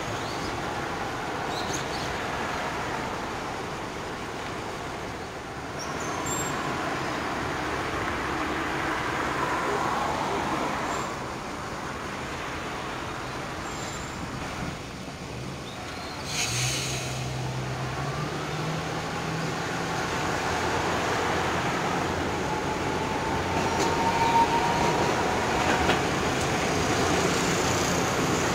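Street traffic at a tram junction: cars and vans passing, with Iyotetsu street trams running over the rails. A louder vehicle passes about sixteen seconds in, and the traffic grows louder near the end as another tram arrives.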